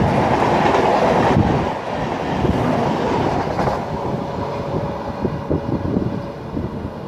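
Rajdhani Express passenger coaches rushing past at speed, their wheels clattering over the rails. About a second and a half in the last coach clears and the noise drops, then fades as the train recedes.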